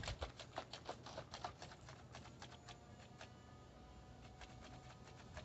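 Faint, irregular clicks and taps from a Nerf battle under way, coming quickly for the first two seconds and then more sparsely.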